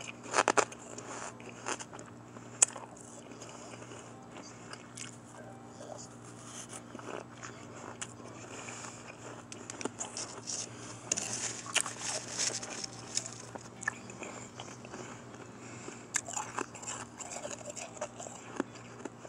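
Close-miked crunching of a mix of powdery shaved ice and crushed ice being bitten and chewed: irregular soft and hard crunches with sharp crackles. A few louder bites come in the first few seconds, and thicker runs of crunching come in the middle and near the end.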